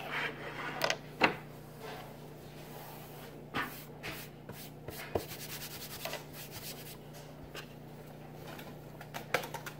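Kitchen prep handling: irregular light knocks and clicks of utensils and containers on the counter, with some rubbing and scraping, over a steady low hum.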